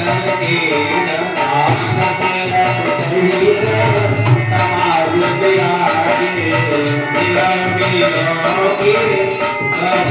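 Indian devotional music: a melody over low drum beats and an even jingling percussion beat of about two strokes a second.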